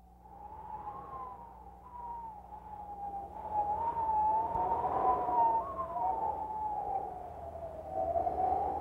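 Title-sequence soundtrack: wavering, wailing tones that glide slowly up and down over a hiss, swelling about three and a half seconds in. A steady low hum runs underneath.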